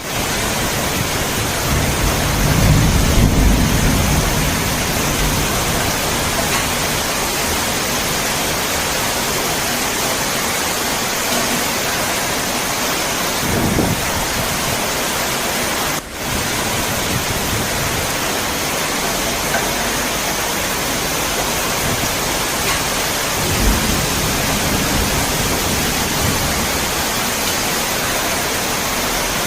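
Steady heavy rain, a continuous hiss, with low rumbles of thunder rolling in a few times: longest a couple of seconds in, briefly about halfway, and again about three quarters through. The sound dips for an instant just past halfway.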